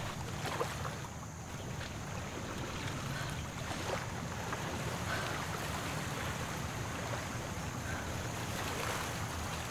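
Steady waterfront ambience: small waves washing against shoreline rocks, with a low wind rumble on the microphone.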